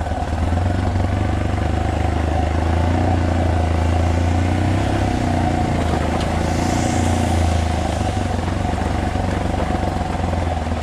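Single-cylinder trail motorcycle engine running steadily at an even throttle as the bike rides along, a low drone with a steady higher whine over a hiss of noise.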